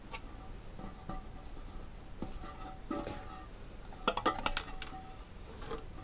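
Light clicks and taps of hands handling the plastic fill valve and its rubber refill tube inside a ceramic toilet tank, with a quick cluster of sharper clicks about four seconds in.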